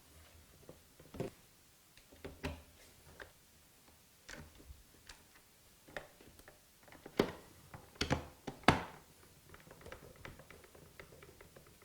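Screws being put back into the plastic base of a Hoover Globe upright vacuum: scattered small clicks and taps of a screwdriver and hands on plastic, with a few sharper clicks about seven to nine seconds in.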